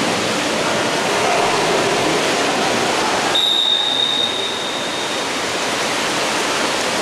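Steady wash of splashing water and crowd noise at a water polo match, with a single referee's whistle blast about three and a half seconds in that fades out over the next two seconds.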